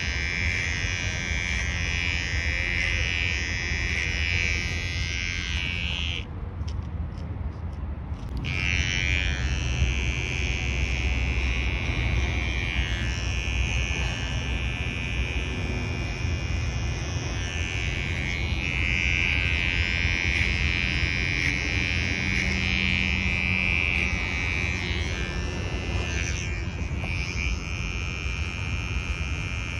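Cordless electric hair clipper running steadily as it cuts hair over a comb. About six seconds in, its higher buzz drops away for about two seconds.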